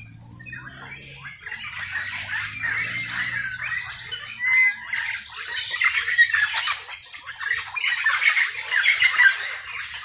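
Many birds calling at once: a dense, overlapping chorus of short chirps and chattering calls that grows louder over the first few seconds.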